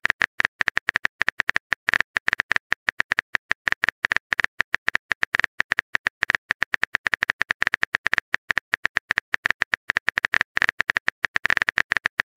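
Phone keyboard typing sound effect: a fast, even stream of short, bright clicks, one per letter, as a chat message is typed out. A short rising swoosh, the message-send sound, starts right at the end.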